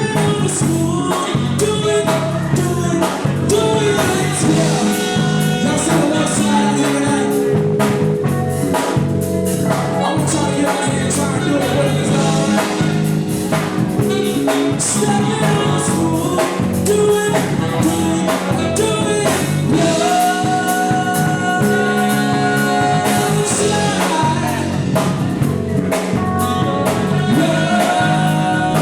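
Live band playing an R&B/soul song, with a lead singer over drum kit and other instruments.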